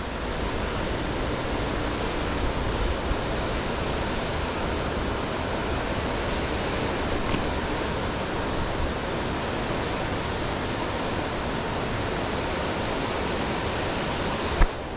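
Steady rush of falling water from a waterfall and its fast, high creek flow, an even noise that holds the same level throughout. A single short knock sounds near the end.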